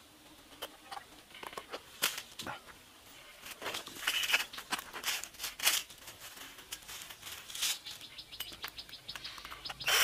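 Scattered small clicks and knocks of a wooden stick being handled and set down, with a few short high chirps in between, and a louder burst of noise starting right at the end.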